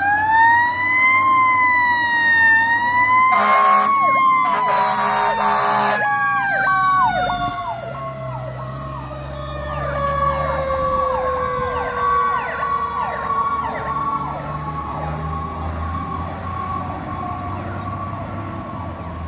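Fire engine running with warning devices: a wailing siren winds up, then slowly winds down over about ten seconds, with two long air-horn blasts a few seconds in. In the second half a rapid electronic yelp of short falling sweeps sounds alongside the fading wail.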